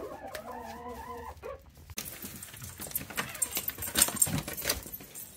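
A hen's drawn-out, wavering call in the coop, then dogs' feet clicking and thumping down wooden steps, with a metallic jangle.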